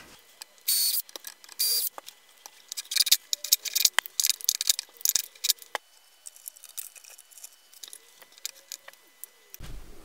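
Electrical wires being handled and fastened: two short rasps in the first two seconds, then a quick run of small clicks and rattles, fading to faint scattered ticks.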